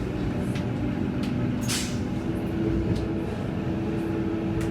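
Passenger train running: a steady rumble with a steady hum, and a few light clicks and knocks, one sharper hiss near the middle.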